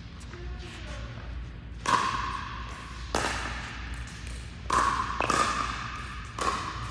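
Pickleball paddles striking plastic pickleballs: about five sharp, hollow pops at irregular intervals of a second or so, each ringing on in the echo of a large indoor hall.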